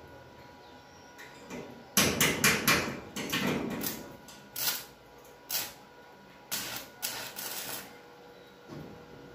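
Electric arc welding on a steel C-purlin: the arc crackles in short bursts, a quick run of strikes about two seconds in, then longer crackles separated by pauses.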